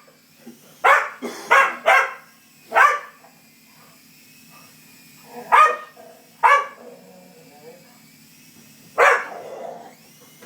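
Small dog barking in seven short, sharp barks at irregular intervals, a few in quick succession, while hunting a toy helicopter. A faint steady hum runs underneath.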